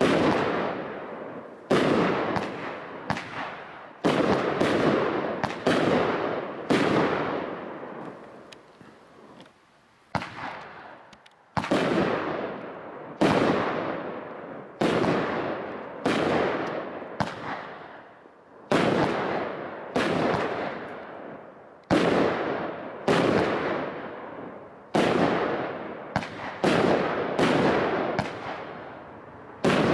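Consumer firework cake firing a rapid run of aerial shots, about two dozen sharp bangs, each fading away over a second or so. There is a short lull about eight seconds in, then the shots come faster and bunch together near the end.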